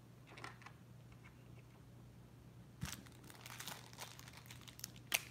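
Small blind-box pin packaging being opened by hand: faint crinkling and tearing from about three seconds in, with one sharp click near the end.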